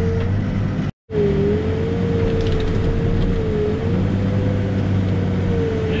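Backhoe's diesel engine running steadily under the operator's cab, with a steady whine from the hydraulics that wavers slightly in pitch as the boom is worked. The sound cuts out completely for a moment about a second in.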